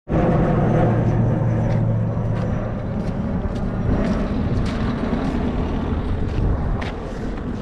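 Airplane flying low overhead, a steady jet rumble that slowly fades as it climbs away.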